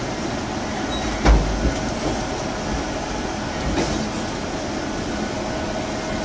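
Doosan hydraulic crawler excavator running steadily under load, its diesel engine and hydraulics making a continuous dense rumble. A heavy thump comes about a second in, and a lighter knock near four seconds.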